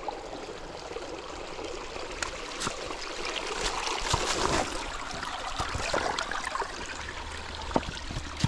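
Shallow creek trickling and gurgling over rocks, with a few scattered footsteps knocking and crunching on stones and wet leaves.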